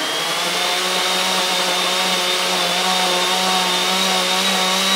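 Electric blender running at a steady speed, grinding black grapes into juice: a steady motor hum with a thin high whine above it.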